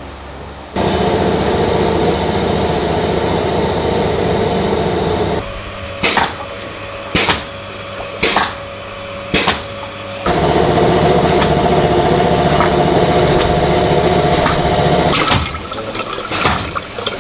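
A factory machine running with a steady hum that stops about five seconds in. Four short bursts of noise follow, about a second apart. The machine then runs again for about five seconds and gives way to irregular clattering near the end.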